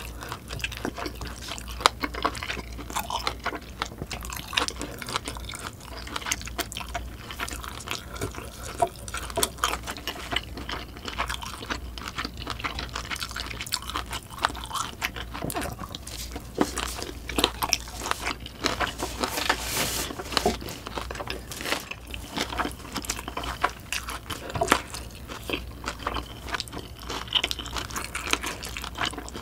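Close-miked chewing and biting: wet, irregular mouth sounds and clicks of a person eating a frankfurter sausage, with a denser, louder stretch about 19 to 20 seconds in.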